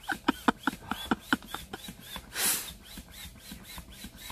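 Hand pump inflating a 65 cm gym ball: quick, regular pump strokes, about four or five a second, each with a short squeak, and a brief hiss of air about halfway through.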